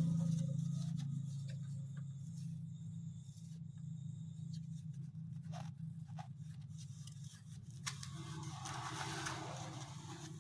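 Faint rustling and scraping of fibre filling being pulled apart and stuffed into a gathered fabric pouch by hand, over a steady low hum.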